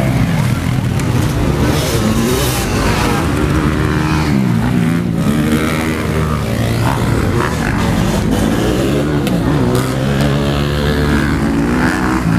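Several motocross dirt bike engines revving hard, their pitch rising and falling again and again as riders accelerate, shift and back off around the track.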